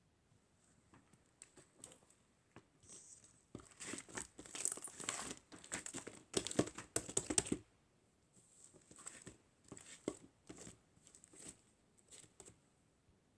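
Crinkling and crumpling of some crinkly material, densest and loudest in the middle, then thinning out to scattered crackles.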